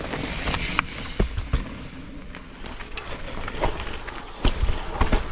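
Mountain bike rolling over a rough, stony dirt trail: tyres crunching on stones and roots, with irregular sharp knocks and rattles from the bike over bumps and a low rumble underneath, louder again from about four and a half seconds in.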